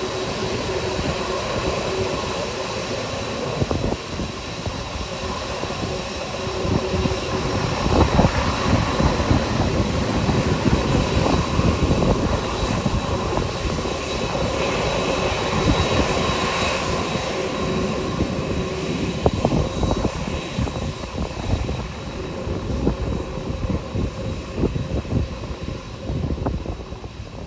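A UPS Boeing 747 freighter's four jet engines running at low taxi power as the jet rolls past: a steady jet whine with a few thin high tones over a heavy rumble. The rumble is broken by wind gusts on the microphone, and it eases a little near the end as the plane turns away.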